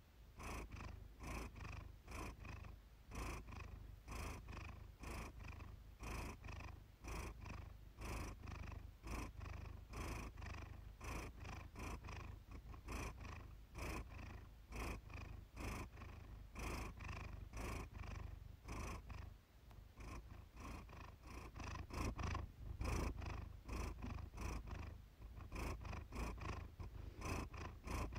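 Siamese cat purring steadily, the purr swelling and fading in even waves about once a second.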